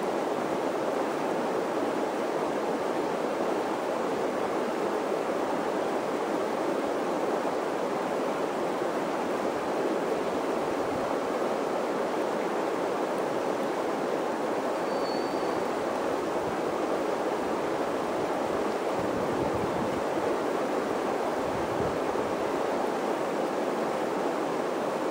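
Steady rush of shallow river rapids.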